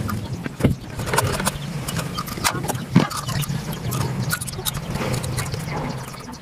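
Small engine running steadily, with scattered clicks and knocks over it, the two loudest about a second in and near the middle.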